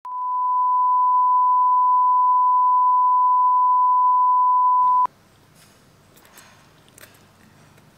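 A single steady, high-pitched beep, a pure test-tone-like sine note, fades in over about half a second, holds for about five seconds, then cuts off abruptly. After it come faint clicks and mouth sounds of someone eating noodles.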